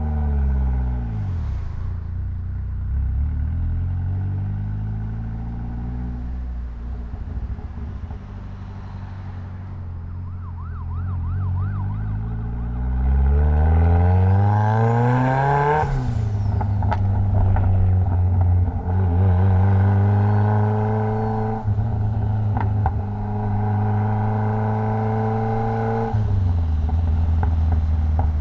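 Mitsubishi Lancer Evolution X's turbocharged 2.0-litre four-cylinder engine driving in traffic. Revs fall at first and idle along low, then climb steeply under acceleration for about three seconds, drop sharply at a gear change and hold steady at higher revs, easing off shortly before the end.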